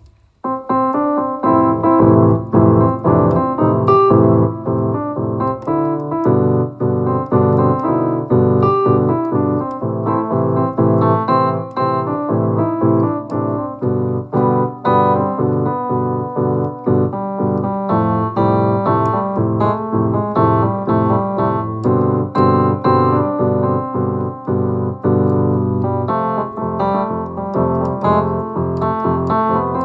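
Electronic keyboard in a piano voice played solo, improvised: chords over sustained bass notes with a melody of many quick notes.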